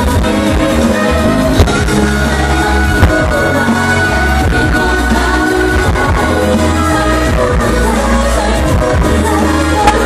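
Live pop music through a stage sound system: female vocalists singing over a steady beat, loud throughout.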